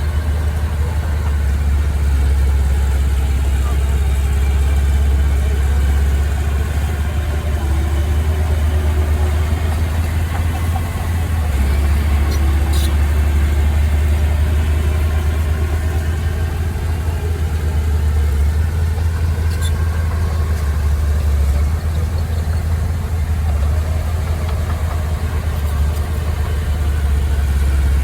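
A heavy machine's engine running steadily, with a deep low rumble and no revving.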